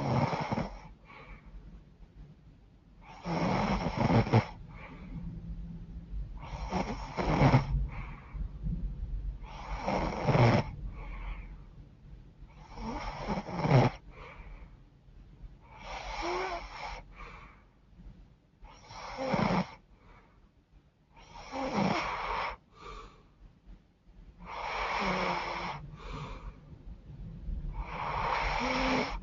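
A woman snoring in her sleep through a stuffed-up, runny nose, about one snore every three seconds.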